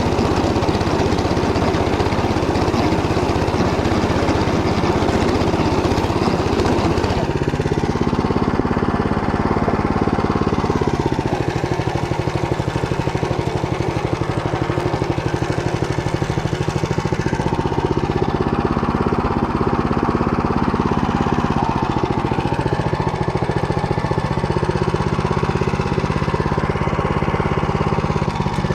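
Walk-behind tractor engine running under load as its rotary tiller cuts through stubble. About seven seconds in the sound turns from rough to a clearer engine note, which then drops and picks up again several times as the load changes.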